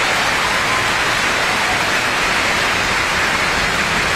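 Large indoor crowd applauding steadily, dense clapping at the end of a tennis point.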